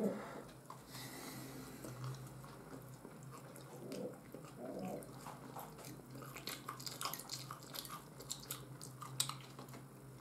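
Faint close-up eating sounds: a person chewing a mouthful of fried egg and fried sausage, with light clicks of a fork against a plate coming more often in the second half.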